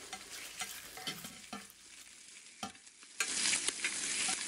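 Bacon frying in a skillet: a few light clicks and pops at first, then about three seconds in a sudden, loud, steady sizzle as a strip is turned over in the fat.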